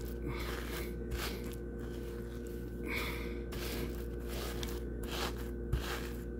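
Faint, scattered rustling of fingers pressing panko breadcrumbs onto an egg-washed steak, over a steady low hum.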